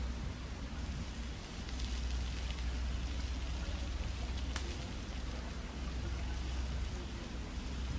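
Small wood fire crackling under a clay pot of shrimp that is being stirred with a spoon, over a steady low rumble, with one sharp click about halfway through.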